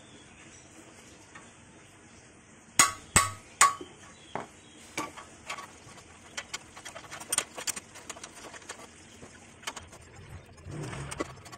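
Steel combination wrench clinking against the stabilizer-link nut on a front strut as the nut is undone. Three sharp metal clinks come close together about three seconds in, then a run of lighter clicks and taps as the wrench is turned and repositioned.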